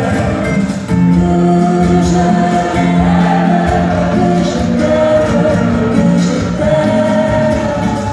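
Large choir singing held chords together, with a soloist singing into a microphone over them.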